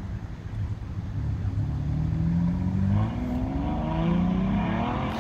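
Sports car engine accelerating hard: its pitch climbs, drops once about three seconds in as with an upshift, and climbs again.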